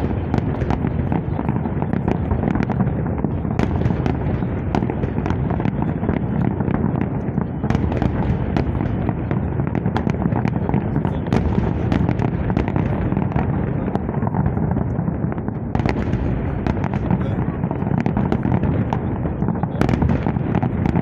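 Fireworks salute going off: a continuous run of sharp bangs and crackles over a steady din, with voices underneath.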